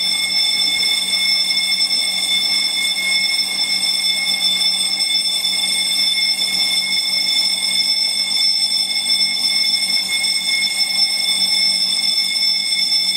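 Hotel fire alarm ringing continuously at a steady high pitch, which the guests take for a broken alarm.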